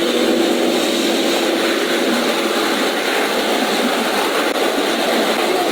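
Steady noise of interstate highway traffic passing the stopped cars, an even rushing sound with no breaks.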